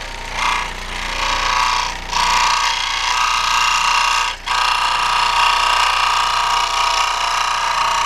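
Dremel scroll saw cutting a carbon fiber sheet, its blade running steadily, with two brief breaks about two and four and a half seconds in.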